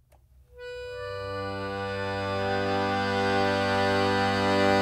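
Schwyzerörgeli (Swiss diatonic button accordion) holding a sustained chord over a low bass note. It fades in from near silence about half a second in and swells over the next two seconds.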